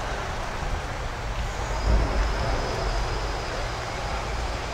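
City street traffic: vehicles running past in a steady wash of road noise, with a low rumble that swells briefly about two seconds in.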